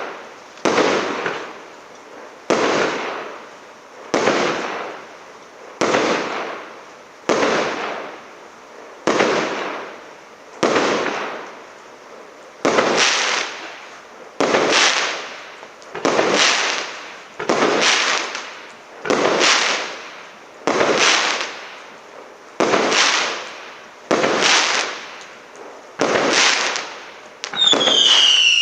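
Firework battery (the СЛ326200 "Марафон" cake) firing shot after shot at an even pace, about one every 1.7 seconds. Each shot is a sharp bang that trails off over about a second. Near the end, falling whistling tones set in.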